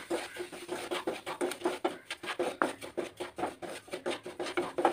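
Spatula scraping and stirring dry-looking semolina (rava) in a pan as it is roasted, in quick, irregular strokes.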